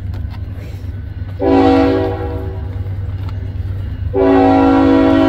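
Union Pacific freight locomotive air horn sounding a chord of several notes in two blasts: a short one about a second and a half in, then a long one starting about four seconds in and still going at the end. A steady low rumble from the train runs underneath.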